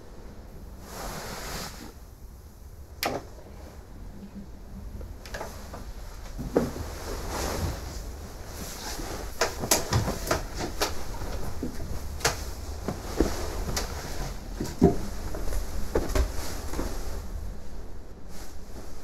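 Bedclothes rustling, with scattered clicks and small knocks from a wooden bed as someone climbs in and settles, over a low steady rumble.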